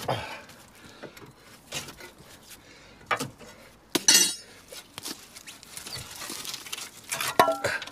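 Steel tools and suspension parts clinking and clanking as a van's front bottom suspension arm is worked free. The knocks come one at a time; the loudest, about four seconds in, rings, and a quick run of ringing clanks comes near the end.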